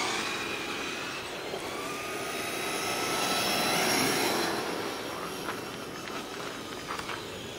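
Traxxas Slash RC truck's brushed electric motor whining as it drives, the pitch rising and falling with speed over tyre noise, loudest about four seconds in, with a few light ticks near the end.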